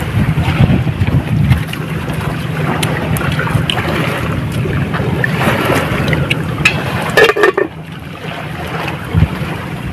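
Wind buffeting the microphone on an open rocky shore, with sea washing against the rocks. A few light clicks, and a brief louder sound about seven seconds in.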